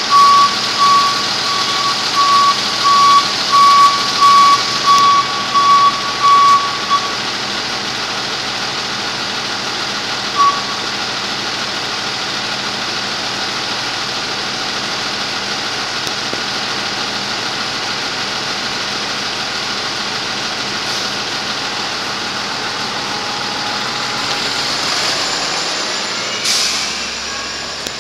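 Nova Bus LFS hybrid transit bus standing with its drivetrain running. A warning beeper sounds a steady run of about ten beeps at one pitch over the first seven seconds, then once more a few seconds later. A short sharp hiss comes near the end.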